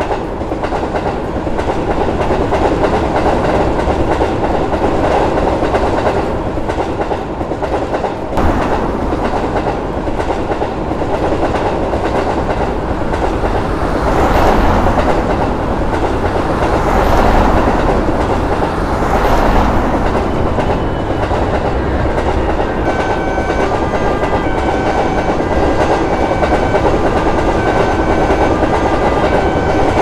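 Passing train running steadily, its wheels clattering over rail joints, with swells in the rumble about halfway through. From about two-thirds of the way in, the short repeating tones of a level-crossing warning bell join in.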